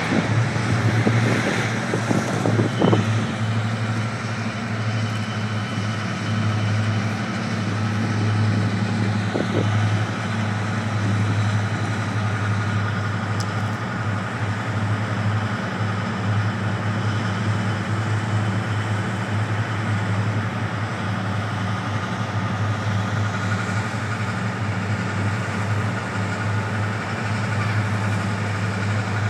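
Five Class 55 Deltic locomotives' Napier Deltic two-stroke diesel engines catching together, rough and loud for the first few seconds, then settling into a steady deep-toned idle.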